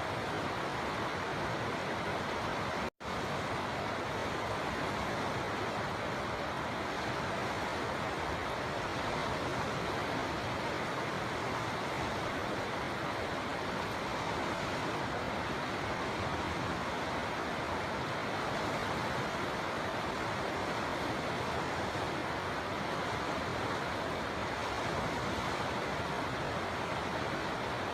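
River water flowing in a steady, even rush, cutting out for an instant about three seconds in.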